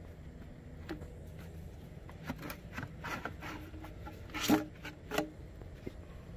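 Plastic air intake duct being twisted and pulled free of an ATV's frame: plastic rubbing and scraping against the frame, with two louder knocks about four and a half and five seconds in.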